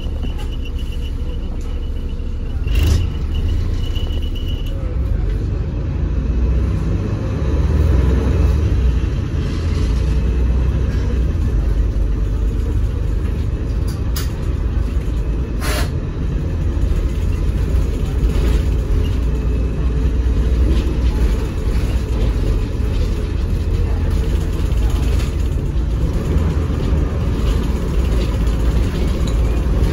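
Volvo B7RLE bus's six-cylinder diesel engine heard from inside the passenger saloon while the bus drives, a steady low rumble. A few sharp knocks from the body and fittings stand out, about three seconds in and twice around the middle.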